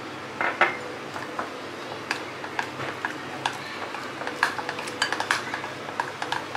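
Metal spoon stirring gram-flour batter in a ceramic bowl, clicking and scraping against the bowl in quick, irregular taps, several a second.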